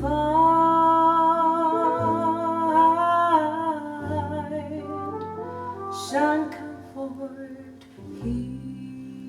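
Music from a slow ballad: a long held melody note with vibrato over a bass line, then a few shorter notes.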